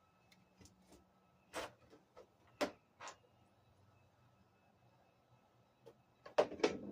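Irregular sharp clicks and knocks of small metal hardware (bolts, washers, Allen wrench) being handled and fitted while the deck is bolted to the scooter frame, with the loudest pair near the end.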